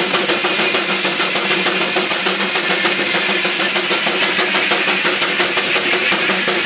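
Engine driving a sawmill, running steadily at a fast, even beat.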